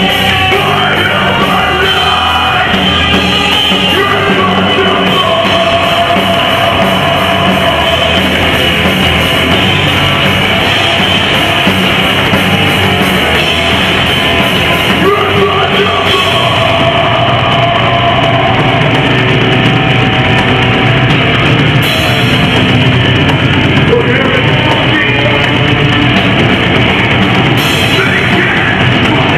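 Loud heavy rock music: yelled and sung vocals over electric guitars, bass guitar and drums, playing without a break.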